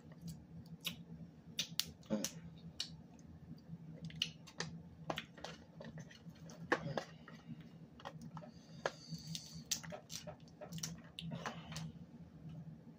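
Snow crab leg shells being cracked and snapped apart by hand, with the wet clicks and smacks of eating crab meat close to the microphone: an irregular string of sharp cracks and clicks.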